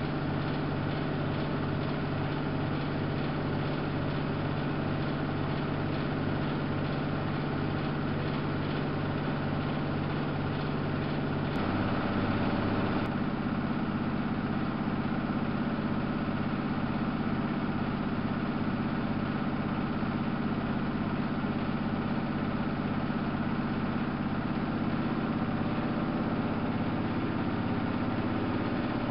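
Samsung WF71284 front-loading washing machine running steadily with a low motor hum and a faint regular pulse as the drum turns. About eleven seconds in, the hum steps up to a higher pitch as the motor changes speed.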